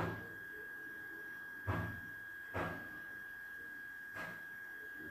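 Metal spoon scraping and knocking against a steel pan as dry-roasted dals, coconut and red chillies are stirred, four short strokes spaced a second or so apart. A thin, steady high-pitched whine runs underneath.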